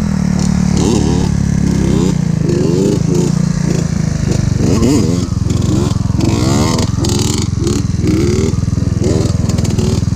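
Small motorcycle engine running steadily under the rider, with a run of short rising sounds repeating over it.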